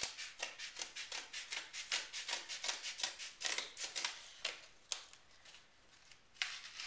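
Scissors snipping through a cardboard mailer in a quick run of short cuts that stops about five seconds in. Another scrape of cardboard follows near the end.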